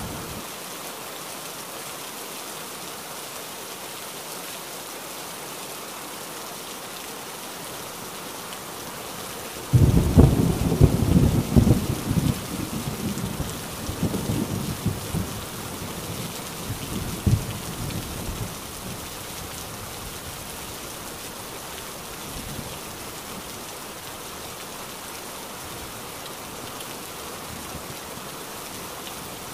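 Heavy rain falling steadily. About ten seconds in, a thunderclap breaks loudly and rumbles and crackles for several seconds before dying away.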